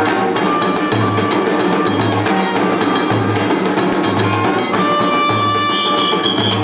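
Percussion-driven Cuban music from street musicians: a low drum beat about once a second under clicking wood-block-like strokes and held melodic notes.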